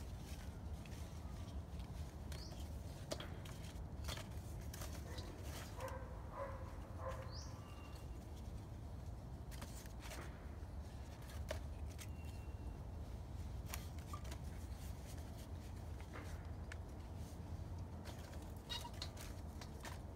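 Paper notes and small sticks rustling and crinkling as hands arrange them in a metal fire bowl, with scattered light taps and clicks.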